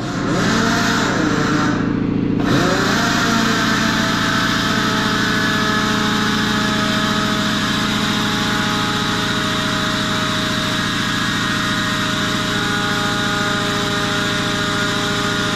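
A motor running with a steady, unchanging hum.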